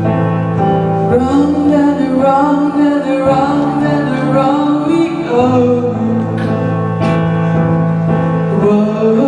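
A solo singer holds and bends long sung notes over piano accompaniment; the voice comes in about a second in.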